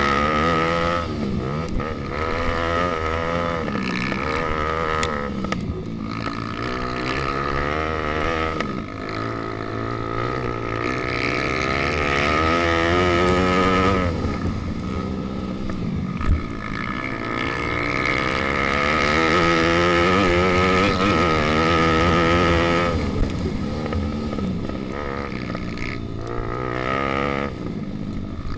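Pit bike engine revving hard on a dirt track, its pitch climbing and dropping again and again as the rider accelerates and backs off, with one sharp knock about midway.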